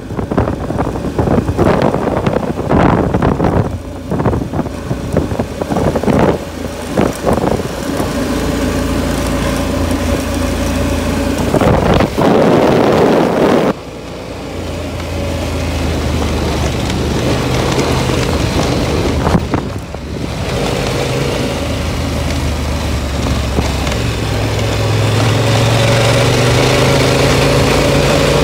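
Adventure motorcycle engine running at trail speed on gravel, its low note stepping up and down in pitch several times. Heavy wind buffeting on the microphone dominates the first several seconds.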